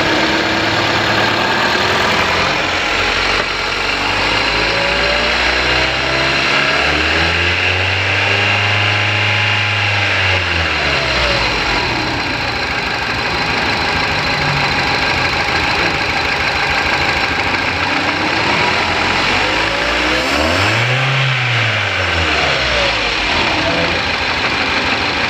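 Vehicle engine running, revved up and back down twice: once about a third of the way in and again near the end. It is an engine with its number-one cylinder not firing, a fault heard as knocking and jerking.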